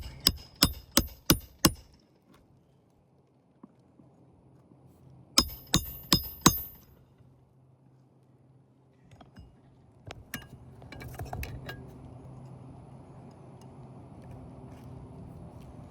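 A roofing hammer drives nails into asphalt shingles with ringing metallic strikes. There is a quick run of about six blows, then a pause, then four more about five seconds in. Fainter taps and scraping follow about ten seconds in.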